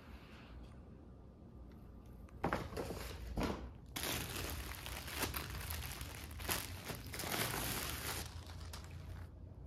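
Plastic packaging crinkling as a clothing order is unwrapped: two sharp rustles about two and a half seconds in, then several seconds of dense crinkling of plastic bags being pulled apart and handled, fading out near the end.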